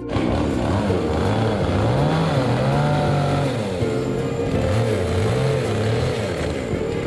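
Electric power carving tool cutting wood, its motor whining with a pitch that keeps dropping and rising as the cutter bites in and eases off.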